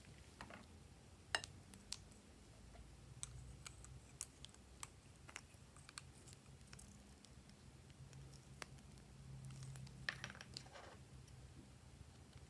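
Scattered light plastic clicks and taps from small lip balm tubes and caps being handled and opened, with a short run of clicking and rustling about ten seconds in.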